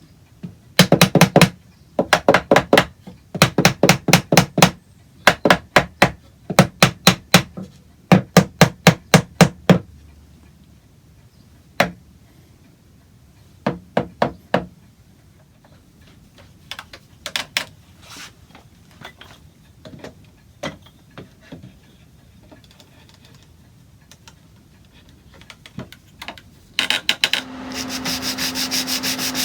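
Rapid bursts of sharp knocking strikes on wood, each burst about half a second long, repeated many times, then a few scattered taps. Near the end a power sander starts and runs steadily with a low hum.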